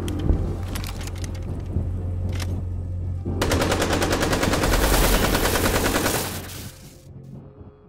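Automatic gunfire: scattered shots over a steady low rumble, then a long, rapid burst about three seconds in that stops about six seconds in and fades away.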